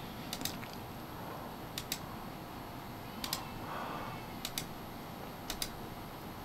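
Five short double clicks, about one every second or so, from a computer mouse or key being pressed and released to page through photos, over a faint room hiss.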